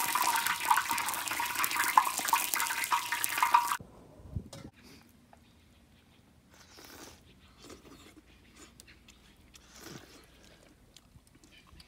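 Food sizzling loudly in a hot wok for nearly four seconds, cutting off suddenly. Then a few soft slurps as a man eats soup noodles from a bowl.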